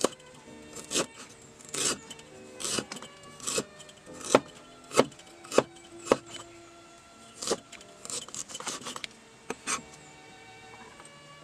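Steel cleaver chopping ginger on a wooden chopping board: about eight sharp, evenly spaced chops, a little over one a second, then a looser run of lighter strokes near the end.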